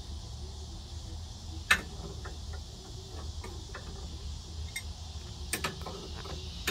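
Scattered clicks and taps of metal hardware as the Strong Arm tool's clamp is fitted and adjusted on the edge of a pottery wheel. One sharp click about a second and a half in is the loudest, with a few more clicks close together near the end.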